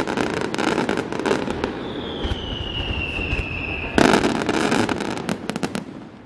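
Fireworks going off: a rapid run of crackling bangs, a whistle that falls slightly in pitch about two seconds in, then a loud burst about four seconds in, with scattered cracks dying away near the end.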